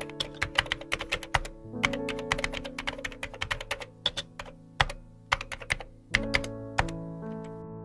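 Rapid, irregular computer-keyboard keystroke clicks, a typing sound effect, over background music with sustained, slowly changing notes. The clicks pause briefly about six seconds in and thin out near the end.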